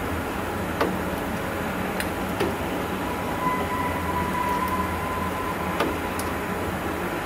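Steady low drone over a noisy rumble, the unexplained 'strange sound' heard over the city, with a few sharp clicks and a steady high tone held for about two seconds near the middle.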